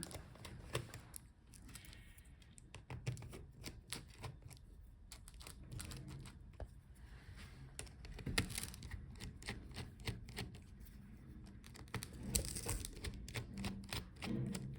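Many small clicks and taps of tools and metal laptop parts being handled while the hinges of a Dell XPS 13 laptop are disconnected, thickest in two clusters in the second half.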